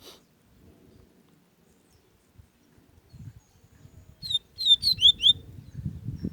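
A bird gives a quick run of about five short chirps about four seconds in, over an uneven low rumble, with a short click at the very start.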